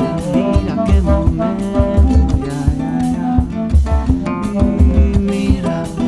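Instrumental stretch of a song with no vocals: a steady drum-and-bass beat under sustained melodic instrument lines.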